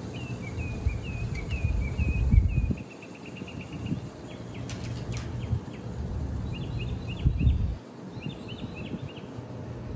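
Small birds chirping with quick repeated calls and short trills, over a low rumble that swells twice.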